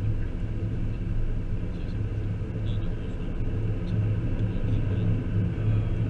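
Car cabin noise while driving: a steady low rumble of engine and road, heard from inside the car.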